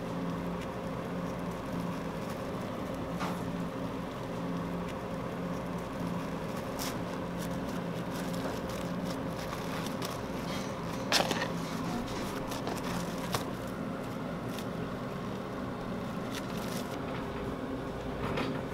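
A steady low machine hum, with a few scattered light clicks and knocks from kitchen handwork, the loudest about eleven seconds in.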